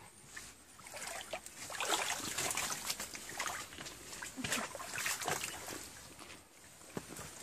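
Water splashing and sloshing in a shallow stream, mixed with the rustle and scrape of leafy undergrowth, in uneven bursts.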